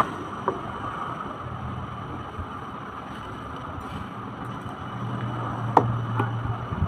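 A few sharp clicks and knocks from a plastic children's ride-on toy car being handled during assembly, one about half a second in and two close together near the end, over a steady background hiss.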